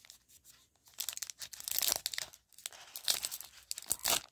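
A baseball card pack's crimped wrapper being torn open by hand, with crinkling of the wrapper. The tearing starts about a second in and comes in two spells with a short pause between.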